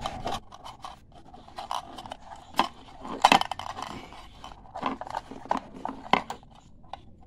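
Irregular clicks, taps and scrapes of an LED bulb's metal housing and its LED circuit board being handled and turned over on a table, the loudest knock about three seconds in.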